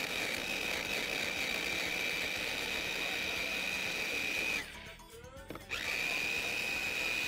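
Electric kitchen chopper's motor running with a steady high whine, grinding cauliflower into fine crumbs. It stops about four and a half seconds in and starts again about a second later.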